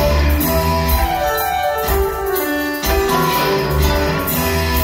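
Live rock band playing an instrumental passage with sustained notes. About a second in, the bass and drums drop out for roughly a second and a half, then come back in.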